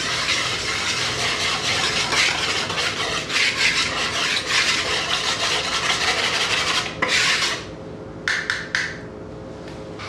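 Wire whisk stirring dry flour mixture in a plastic mixing bowl, a steady scratchy rasping that stops about seven and a half seconds in, followed by a few brief scrapes.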